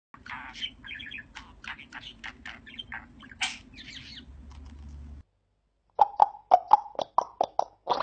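A budgerigar chirping and warbling in quick, varied notes. After a short break comes a run of about eight loud, sharp pops, about four a second, from a grey parrot.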